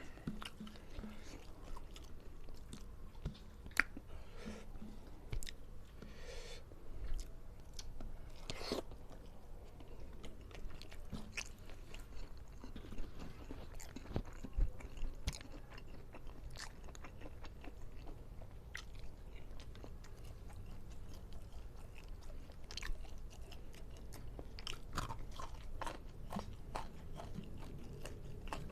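A person chewing and biting food close to the microphone, with wet mouth sounds and scattered short crisp crunches and clicks.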